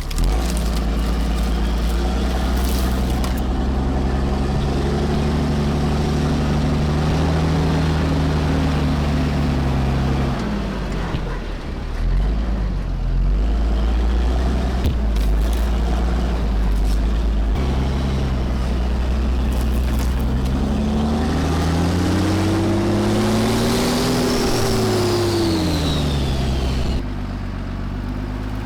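Cummins turbo-diesel engine of a Ram 5500 off-road wrecker pulling under load over rough ground. The engine speed climbs and falls twice, and a high whine rises and falls with the second surge.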